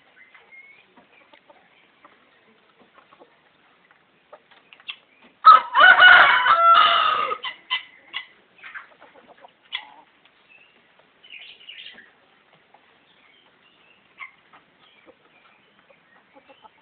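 A rooster crowing once, a loud call of about two seconds starting roughly five and a half seconds in, with scattered faint short sounds before and after.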